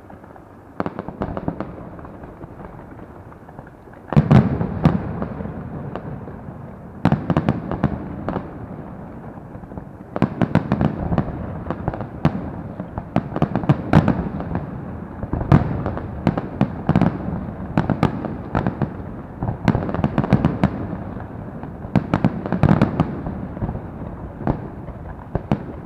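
Fireworks going off: clusters of sharp bangs and crackles every few seconds over a continuous low rumble. The loudest burst comes about four seconds in.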